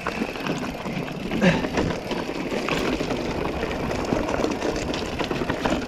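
Mountain bike rolling over a loose, rocky trail: tyres crunching on stones and the frame and parts rattling in a dense, irregular run of small knocks.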